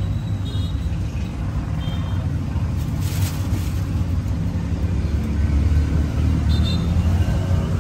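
Steady low rumble of passing street traffic, with a brief hiss about three seconds in.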